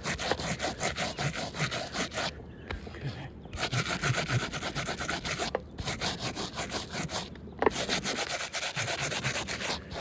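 A hand rubbing asphalt roof shingles hard, in quick back-and-forth scraping strokes with a few short pauses. It is a vigorous rub test that loosens the shingles' granules, to show how much aggregate comes off.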